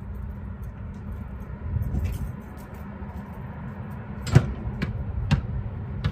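A basketball strikes the hoop with one sharp, loud bang, then bounces two or three times on asphalt, with a steady low rumble behind it.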